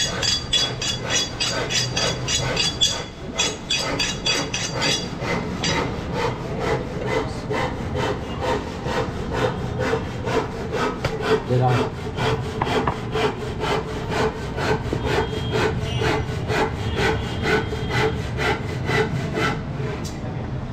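A butcher's knife being sharpened against a rod with rapid, even scraping strokes, about four to five a second.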